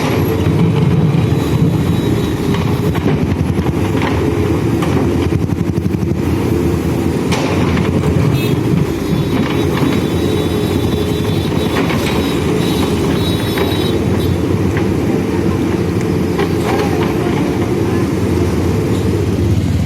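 Manitou backhoe loader's diesel engine running steadily under working load, with a few short knocks as the machine digs and loads.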